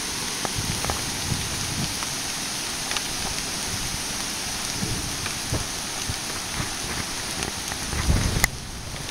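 Rain falling steadily on pavement, a continuous hiss with scattered drop ticks. Near the end there is a brief low rumble, and then the sound suddenly turns quieter.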